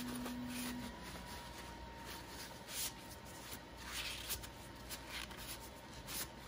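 Paper towel dampened with isopropyl alcohol rubbing along a resin vat's aluminum frame, wiping off resin residue, in soft, irregular swishes.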